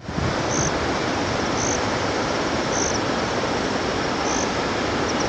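Steady rushing of a flooded river in spate, with short high chirps repeating about once a second.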